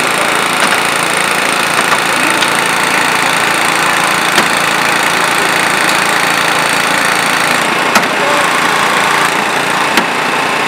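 Small petrol engine of a hydraulic rescue-tool power unit running steadily, with a couple of sharp cracks near the end as the car's door is worked free.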